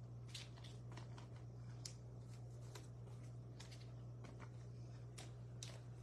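Faint rustling and scattered light ticks of trading cards being handled and slid into plastic sleeves, over a steady low hum.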